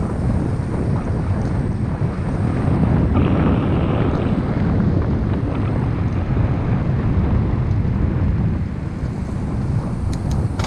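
Wind buffeting the microphone of a helmet-mounted camera on a moving mountain bike, a steady low rumble.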